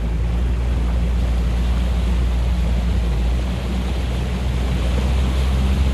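A boat's engine running steadily while under way, a low even drone, with a steady hiss of water and air rushing past.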